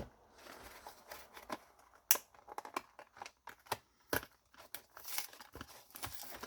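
Card box packaging being handled and torn open: scattered crinkles and rustles with sharp crackles, the loudest snaps about two and four seconds in.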